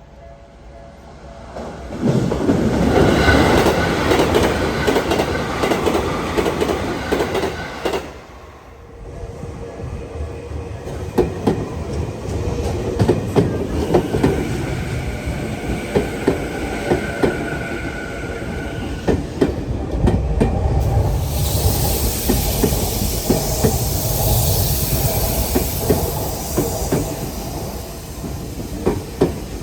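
Two Tokyu Meguro Line electric trains pass close by over a level crossing: the first rushes in about two seconds in and is gone by about eight, then after a brief lull a second train rolls through with a run of sharp clacks from its wheels over the rail joints.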